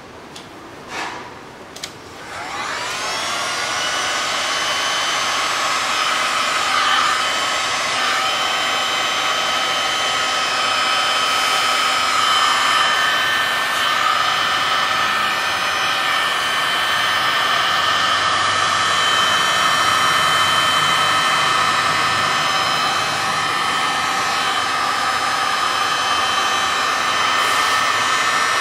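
A few light handling knocks, then an electric heat gun switched on about two seconds in, its fan whine rising as it spins up and then running steadily as it blows hot air over wet epoxy resin.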